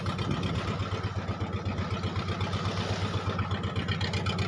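Boat engine running steadily with a fast, even low throb.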